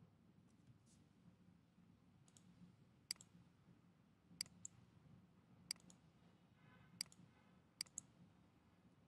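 Computer mouse clicking over near silence: sharp single clicks about a second apart, some in quick pairs.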